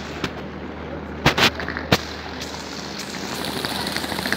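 A few sharp knocks and clicks over steady background noise, with a soft hiss building toward the end.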